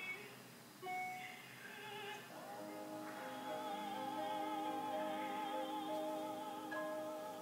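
Operatic singing: a voice holding long notes with a wide vibrato over sustained accompanying notes.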